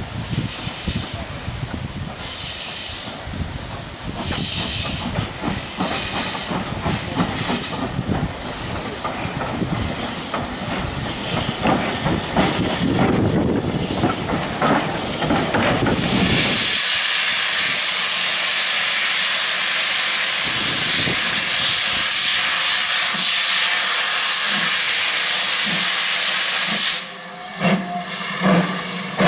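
A small saddle-tank steam locomotive runs slowly past with a low rumble. Then comes a loud, steady hiss of venting steam from the GWR Hall-class locomotive Pitchford Hall, cut off about two seconds before the end by a few rhythmic chuffs and clanks.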